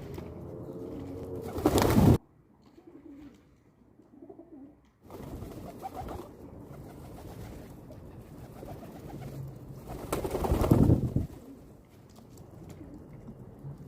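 Pigeons cooing in low, steady tones. Two loud rushing bursts cut across it, one about two seconds in and one about ten seconds in.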